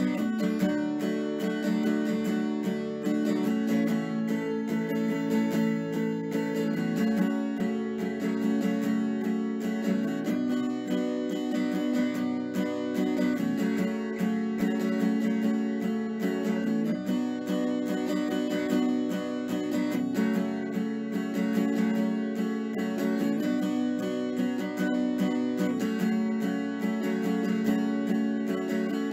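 Background music: acoustic guitar playing strummed chords, the harmony changing every few seconds.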